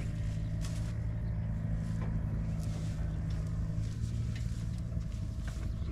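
A steady low engine drone, unchanging in pitch, with a few faint ticks over it.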